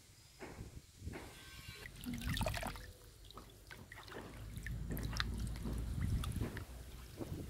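Water splashing and dripping as hands swish water mimosa stems around in a plastic basin of water, with water trickling from a wet colander into the basin.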